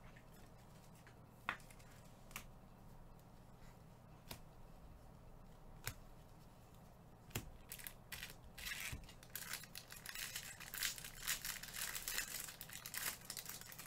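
Scattered light clicks of trading cards being handled, then, from about halfway through, a dense run of tearing and crinkling as a card-pack wrapper is ripped open.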